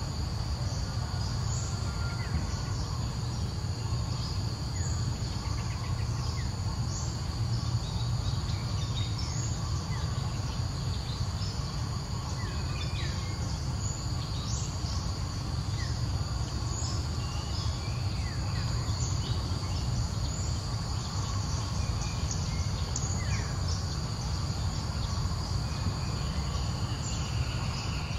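Steady high-pitched insect drone, with short high chirps scattered throughout and a low rumble underneath.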